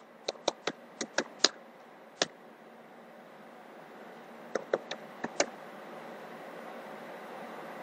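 Typing on a computer keyboard: a quick run of about nine keystrokes, a pause, then five more a couple of seconds later. Under them is a faint hiss that slowly grows louder.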